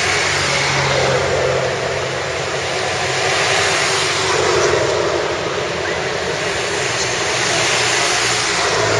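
Steady motor vehicle noise, a continuous rush with a low engine drone and no single stand-out event.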